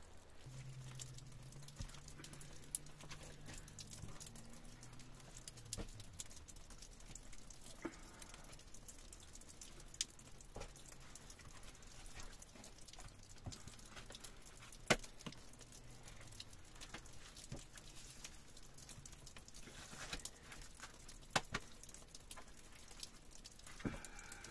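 Faint, irregular clicks and light knocks, with a low hum during the first few seconds.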